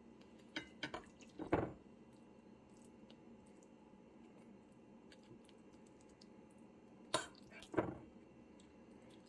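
Fork scraping and tapping against a glass bowl and spreading tuna salad onto toast: a few short clicks and scrapes about a second or two in, and again around seven to eight seconds in, with quiet room tone in between.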